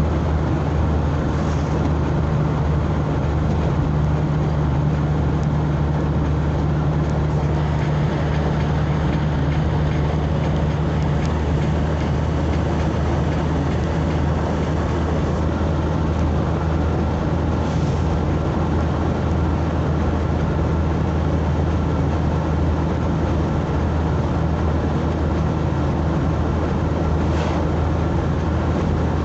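Steady engine drone and tyre-and-road noise from inside a moving vehicle cruising at an even speed, with a low hum that holds constant.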